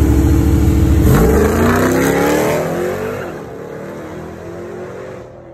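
A car's engine running loud and close, then from about a second in revving hard as the car accelerates away, its rising engine note fading with distance.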